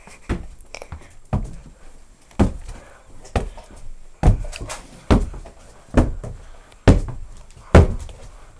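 Heavy footsteps thudding on the floor, about one a second and quickening slightly, picked up close by a handheld camera's microphone.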